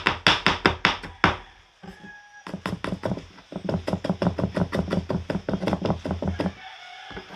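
Quick, even knocks of ginger being chopped on a cutting board, about five a second. A short run at the start and a longer one after a brief pause about two seconds in.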